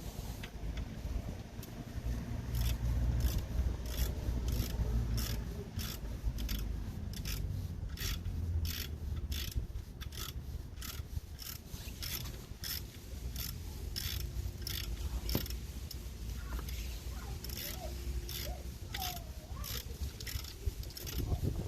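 Ratchet wrench clicking in quick, fairly even strokes, about two to three clicks a second, over a low handling rumble.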